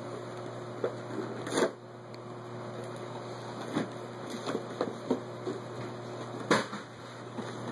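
Light taps and handling noises of a baby sneaker and its lace being played with, over a steady low hum. There are two sharper knocks, about a second and a half in and again about six and a half seconds in.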